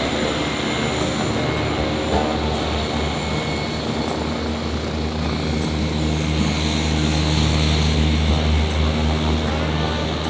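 Propeller-driven light airplane engine running steadily, growing somewhat louder in the second half.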